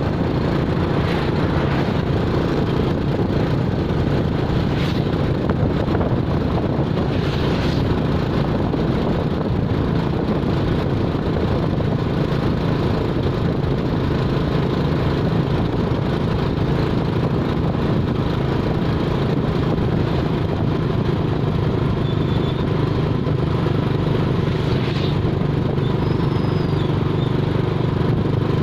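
Steady engine hum and road noise of a moving motor vehicle, running evenly without changes in speed, with a few faint brief sounds over it.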